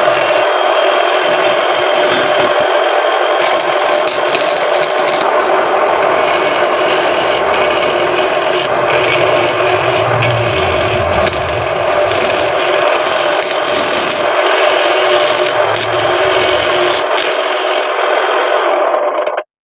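A turning chisel made from an old sickle blade cutting a spinning wooden blank on a belt-driven wood lathe: a steady, loud, rough scraping. It stops abruptly near the end.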